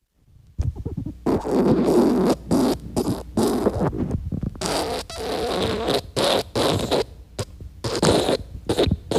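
Fart sound effects: a rapid series of separate buzzy, sputtering farts, some short and some drawn out for about a second.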